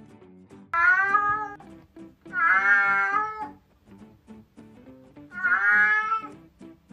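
Domestic cat meowing three times, each a long meow of about a second, over background music with plucked guitar-like notes.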